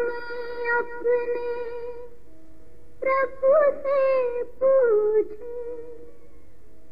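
Music: a melody of long held notes in two phrases over a soft backing, the lead-in to a Hindi devotional song before its first sung line. After the second phrase the melody drops out and only the soft backing carries on.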